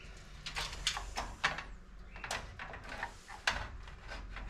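Irregular clicks and light knocks of a motherboard being set into a computer case and shifted about to line up with its mounting holes and locating pin, with one sharper knock about three and a half seconds in.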